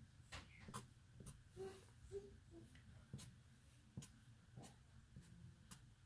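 Faint scratches of a Sharpie permanent marker's felt tip on paper, making short, quick strokes for cactus spines, about two irregular ticks a second.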